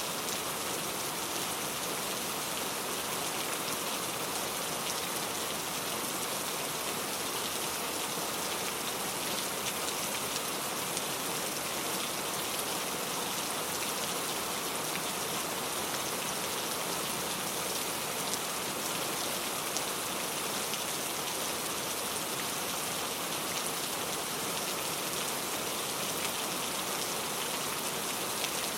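Heavy rain falling steadily, an even hiss of many drops on surfaces with no let-up.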